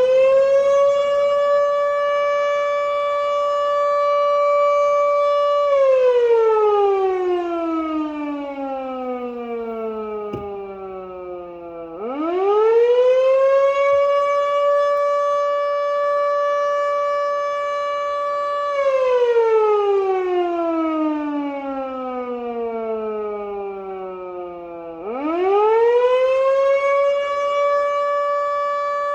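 Model 2 electromechanical fire siren sounding a test in a wailing cycle. It holds one steady tone for about six seconds, then winds down slowly over about six seconds and quickly winds back up to full pitch. The cycle repeats, with the wind-ups about 12 and 25 seconds in.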